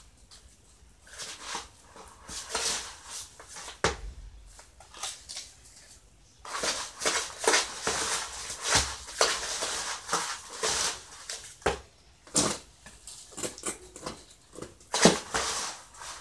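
Gritty scraping and crunching of wet cement mortar being scooped from a plastic basin with a tin can and packed by hand into a wire-mesh form. It comes in irregular bursts, with a sharp knock about four seconds in and a louder one near the end.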